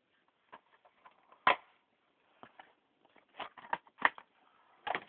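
Plastic DVD cases being handled: a run of irregular clicks and knocks, the sharpest about a second and a half in and again around four seconds.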